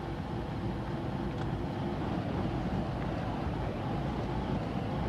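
Steady engine and road noise of a moving car, heard from inside the cabin: an even low rumble.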